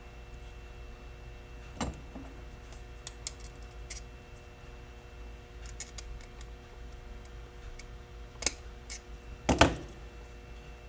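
Scattered small clicks and light knocks of small metal and plastic axle parts being handled as a C-clip is fitted onto a Clod axle shaft. The sharpest knock comes near the end.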